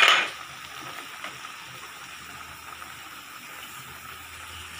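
Spicy red seblak sauce with sausage and greens sizzling steadily in an aluminium wok, after a brief loud clatter right at the start.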